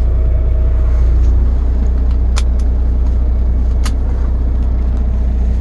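Semi truck's diesel engine idling, a steady low rumble heard from inside the cab, with two light clicks partway through.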